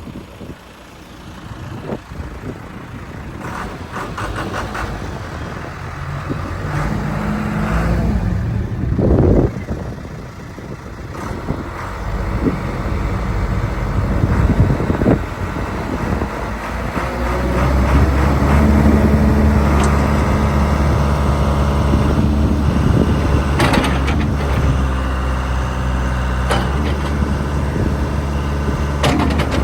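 John Deere 310D backhoe loader's diesel engine running while the machine is operated, rising in speed and changing pitch as it comes under load, with a few sharp knocks. About halfway through it settles into a louder, steady higher-speed run.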